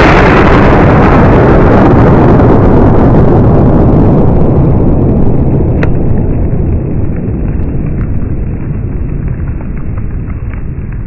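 Aftermath of a 650-gram XXL Dum Bum ground salute detonating: a loud wash of rumbling noise that holds for several seconds and then slowly fades, with a few sharp ticks about six seconds in as dirt and debris come down.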